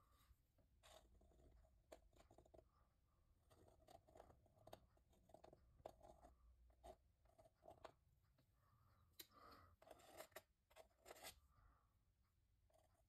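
Faint scraping of a metal palette knife dragging thick acrylic paint across a textured painting surface, in short strokes, with a run of stronger scrapes about nine seconds in.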